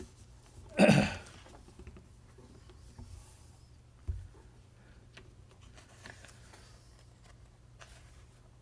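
Bible pages and loose paper notes being handled and turned on a wooden lectern: soft rustling and small ticks, with one short, loud sound about a second in and a soft knock around four seconds.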